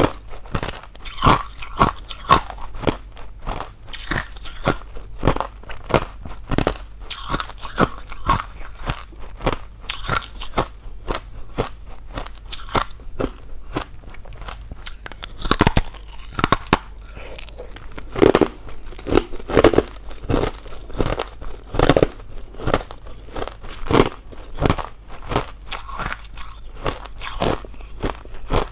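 Thin hollow ice crunching close up as it is bitten and chewed, with many quick, irregular sharp cracks and snaps, some much louder than the rest.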